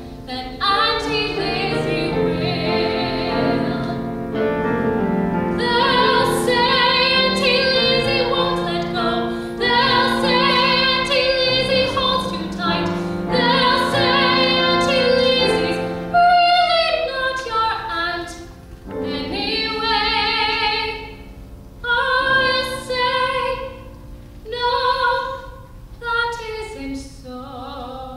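A woman's solo voice singing a ballad into a microphone, with piano accompaniment. She holds long notes with vibrato, then sings shorter phrases with brief pauses in the second half.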